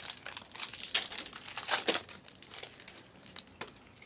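Crinkling and rustling of trading-card packaging and cards being handled: a dense run of sharp crackles that thins out after about three seconds.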